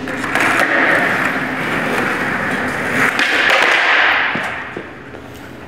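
Skateboard wheels rolling on a smooth concrete floor, with a sharp clack of the board about three seconds in during a kickflip attempt; the rolling dies away near the end.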